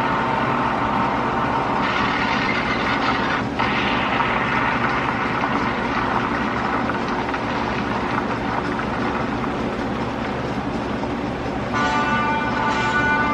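Loud sound effect of vehicle noise: a steady engine-like rumble with a noisy upper layer, briefly broken about three and a half seconds in. Near the end a new set of steady tones comes in over it.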